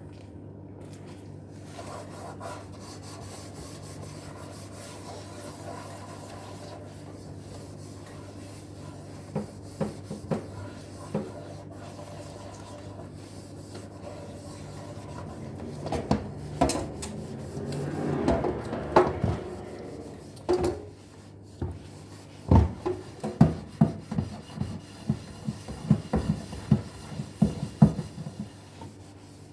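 Dishes being scrubbed by hand, with scattered knocks and clatters, then a run of regular rubbing strokes, about two a second, in the last third.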